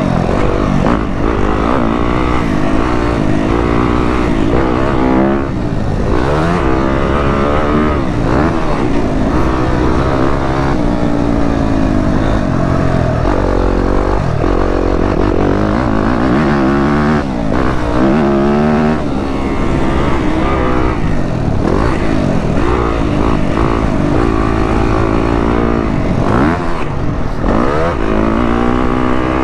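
Yamaha YZ250F's four-stroke single-cylinder engine being ridden hard, revving up and falling back over and over as the throttle is opened and closed through the track's sections.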